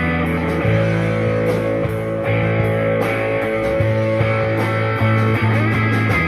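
Electric guitar playing held, sustained notes in a rock style over a moving low bass line, with short ticks keeping a steady beat, as in a guitar tone test.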